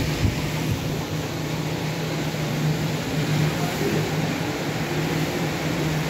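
Industrial washing machine for plastic flakes running with a steady hum.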